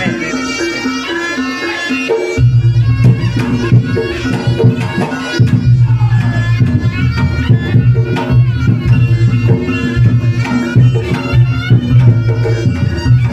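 Reog Ponorogo gamelan accompaniment: a slompret shawm plays a wavering, reedy melody over kendang drums and gongs keeping a driving beat. The low drums and gongs are thin at first and come back in strongly about two seconds in.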